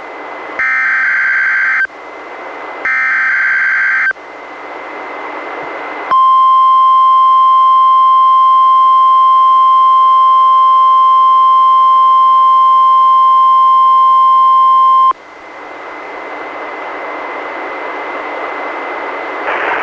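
NOAA Weather Radio test broadcast. It opens with two SAME digital header bursts, each about a second of rapid two-tone data screech, then a couple of seconds of radio hiss. Then comes the 1050 Hz warning alarm tone, a loud steady pure tone lasting about nine seconds, which cuts off into hiss.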